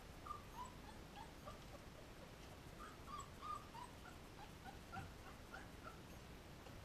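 Young puppies whimpering faintly: many short, high squeaks scattered throughout, busiest around the middle.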